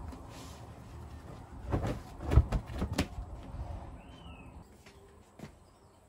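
Laundry being handled out of a plastic laundry basket: cloth rustling with a cluster of knocks and clicks, loudest about two and a half seconds in. A short bird chirp follows near the end.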